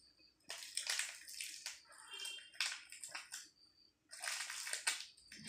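Crinkling and rustling of a pastry cake's paper liner being handled and peeled while a spoon digs into the cake, close to the microphone, in two bursts: a long one starting about half a second in and a shorter one about four seconds in.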